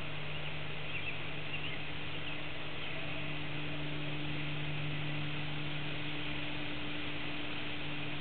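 Bullfrogs calling in the background, heard as a low, steady drone, with a few faint high chirps about a second in.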